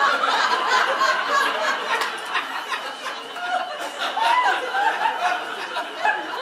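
Audience laughing and chuckling.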